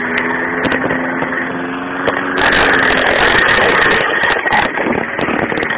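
Walk-behind rotary petrol lawn mower engine running steadily, getting louder and rougher for about a second and a half midway.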